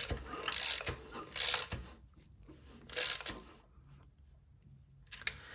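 Hand ratchet clicking in short bursts on its return strokes as a 40 mm socket turns a motorcycle engine's crankshaft by hand. There are four bursts, and the clicking stops about three and a half seconds in.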